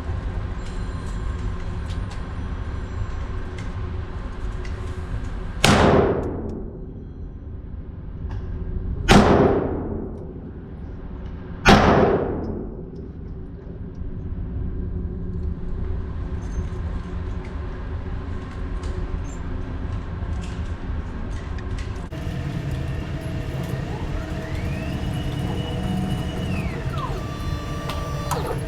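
Three 9mm pistol shots, fired singly a few seconds apart, each cracking sharply and ringing on briefly, over a steady low rumble.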